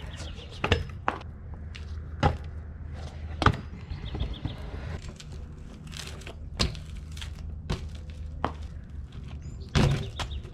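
Skateboard and then a BMX bike ridden on concrete: irregular sharp clacks and thuds as the board and wheels hit the concrete, over a steady low hum.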